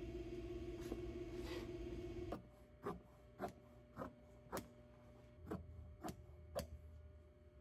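A steady low hum that cuts off abruptly a little over two seconds in. Then shears cutting upholstery fabric on a table: seven sharp snips, about two a second.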